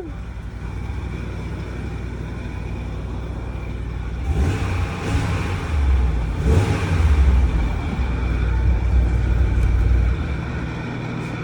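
Ram pickup truck's engine running at idle, revved up a few times from about four seconds in, then settling back to a steady idle.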